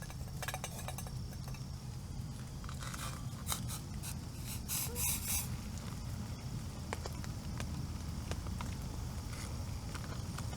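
Crinkling and scraping of a foil freeze-dried meal pouch being handled, in scattered clusters, over steady low background noise.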